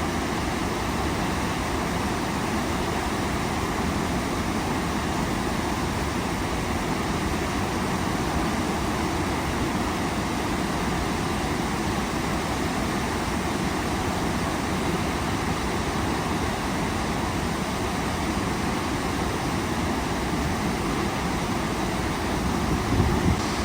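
Waterfall: a steady rush of falling water, even and unbroken, with a brief low thump near the end.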